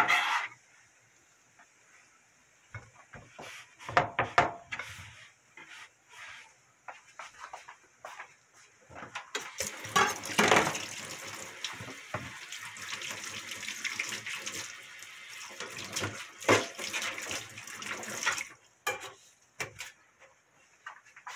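A few knife knocks on a wooden cutting board, then a kitchen tap running into a sink for about nine seconds from around nine seconds in, stopping suddenly.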